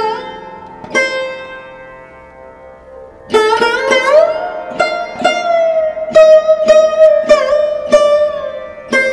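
Background music: a plucked string instrument plays a slow melody with notes that slide in pitch. After one long fading note, a quicker run of plucked notes begins a few seconds in.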